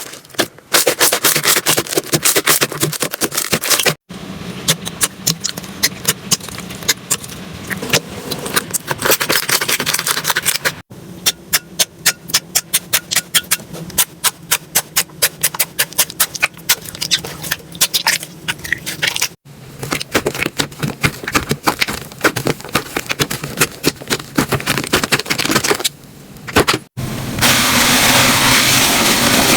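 Slime being squeezed, poked and stretched by hand, making rapid runs of small sticky pops and crackles, in several short clips joined by abrupt cuts. Near the end the sound changes to a steady rasping rub.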